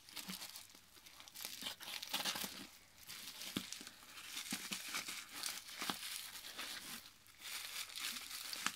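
Scissors snipping through plastic wrapping and tape, with the wrap crinkling and rustling as it is cut open, a few sharp snips among the irregular rustles.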